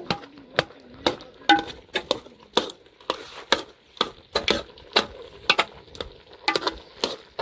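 A steady series of sharp knocks, about two a second, each one short and evenly spaced.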